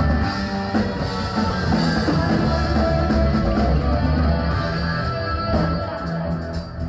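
Live rock band playing, with distorted electric guitar, bass and drums.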